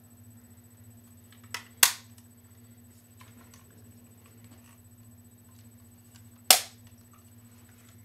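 Objects thrown at a running fan strike it with sharp cracks. A light click comes about a second and a half in, a loud crack follows right after, and a second loud crack comes about six and a half seconds in, all over a low steady hum.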